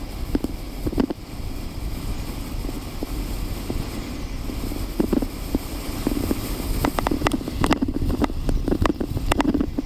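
Natural-track luge sled sliding fast over packed snow: a steady scraping rush from the runners, with wind on the microphone. Scattered knocks and clatters as the sled rides over bumps, coming more often in the second half.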